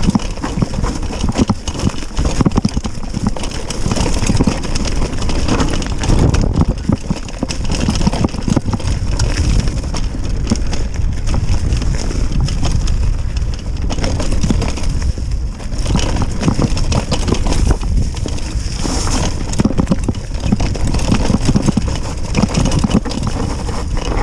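Mountain bike descending a rough downhill trail: a constant rumble of tyres over dirt and rocks, with rapid knocks and rattles from the bike and wind buffeting the microphone.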